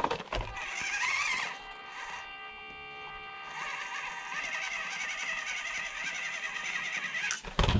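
RGT V2 1/24 mini crawler's electric motor and geared drivetrain whining steadily as it crawls slowly up a steep incline, the pitch wavering slightly as the load changes. A few knocks near the start as the truck is grabbed and set back down.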